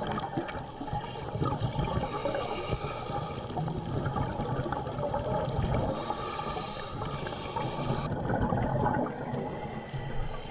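Underwater sound of a diver breathing through a regulator: a steady gurgle of exhaled bubbles with two longer hisses of drawn air, about two and six seconds in.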